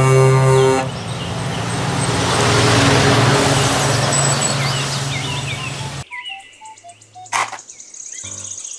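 Scania tanker semi-truck driving past on a road: a short horn blast, then engine and tyre noise swelling and fading over about five seconds, with birds chirping. The truck noise cuts off abruptly about six seconds in, leaving birdsong and a single sharp click.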